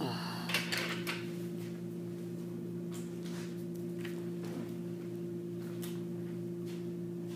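A steady low hum in a small room. A cluster of knocks and rattles falls in the first second, and a few faint clicks come later.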